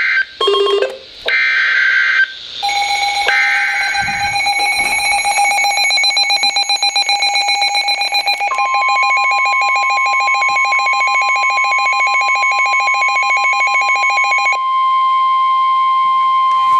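Emergency Alert System severe thunderstorm warning: about two seconds of shrill digital data bursts from the SAME header, then the loud electronic attention tone. The tone flutters rapidly at first, a second, higher tone joins about halfway through, and near the end both go steady.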